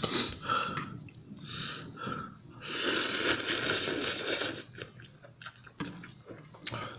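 A person breathing hard and wheezing through the mouth between chews, from the burn of very spicy noodles. A longer, heavier breath comes about two and a half seconds in, and there are a few sharp mouth clicks near the end.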